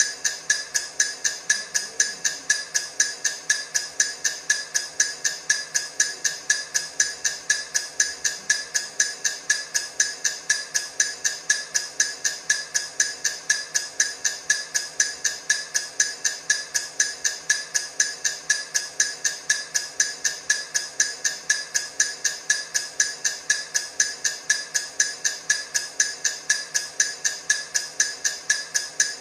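Countdown timer's ticking sound: short, sharp ticks, evenly spaced a few a second, at a steady level without a break.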